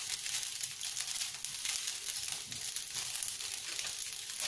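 Rice vermicelli and sliced meatballs frying in a wok over medium heat: a steady sizzling hiss with fine crackles.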